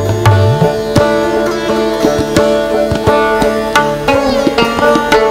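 Background instrumental music in an Indian classical style: plucked string notes over a steady drone, with hand drums whose low stroke bends upward in pitch.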